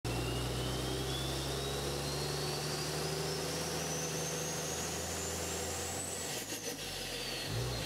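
Intro sound effect of an engine running with a steady low drone and a high whistle that climbs slowly in pitch for about six seconds, then falls away as the drone cuts off.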